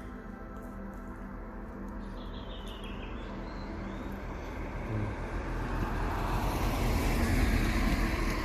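A road vehicle passes by, its tyre and engine noise swelling to a peak late on and then starting to fade.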